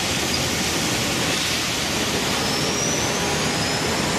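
Street traffic on a wet road: a steady hiss of tyres and engines as a Routemaster double-decker bus moves off, with a faint rising whine in the second half.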